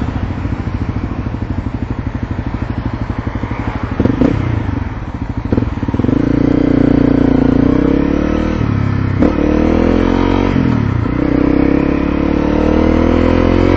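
Motorcycle engine idling with an even pulse at a stoplight, then pulling away about six seconds in and revving up, with two gear changes.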